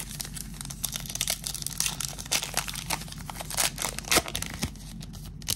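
A foil trading-card pack wrapper being torn open and crinkled by hand: a dense run of crackles and rips, loudest a little past four seconds in.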